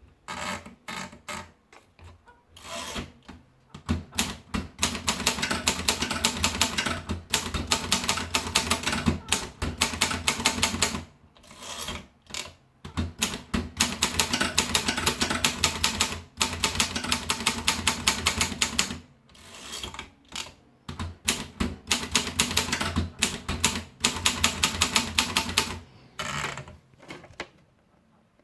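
Olympia Simplex typewriter being typed on. Runs of rapid key and typebar strikes are broken by short pauses.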